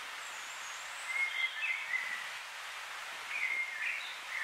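A songbird sings two short phrases of warbling whistled notes, about a second in and again just after three seconds, over a steady background hiss.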